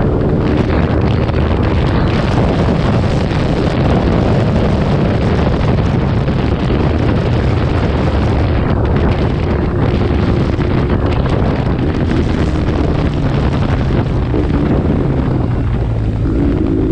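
BMW R1150GS Adventure's boxer twin running through an aftermarket Two Brothers Racing full exhaust with the catalytic converter removed, heard while riding under heavy wind buffeting on the microphone.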